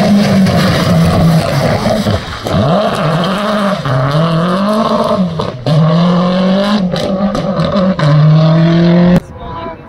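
Audi A1 rally car driven hard on a stage: the engine revs up and drops back again and again with quick gear changes, with several sharp cracks in the second half. The sound cuts off suddenly near the end.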